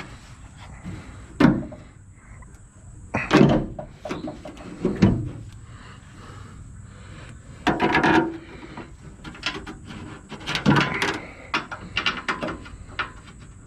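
Irregular clunks, knocks and rattles of sheet-metal truck body parts being handled and fitted, with a longer rattle about eight seconds in and a run of small ticks near the end.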